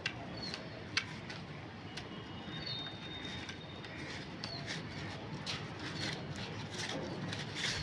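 Scissors snipping through folded chart paper in short sharp cuts, with small birds chirping now and then in the background.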